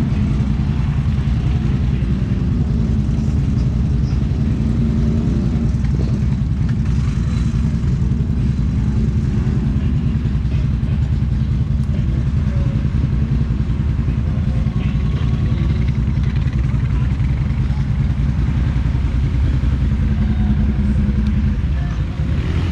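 ATV engine running steadily while riding, with a dense low engine note whose pitch shifts slightly with the throttle. It dips briefly near the end.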